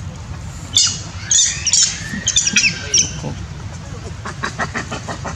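Monkey shrieking: several loud, short, high-pitched squeals in the first three seconds, then a quicker run of fainter, shorter calls near the end.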